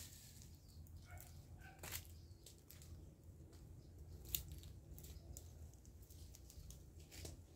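Near silence, with a low steady rumble and a few sharp light snaps, the loudest about four seconds in. A couple of faint short chirps come in the first two seconds.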